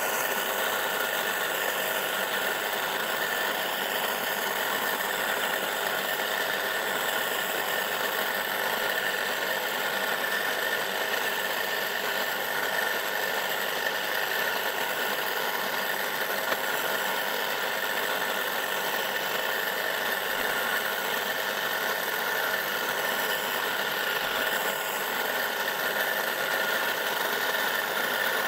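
Laplosh hand-pushed electric cultivator's single-phase motor running under load as it cuts a potato furrow in tilled soil, a steady, even whine.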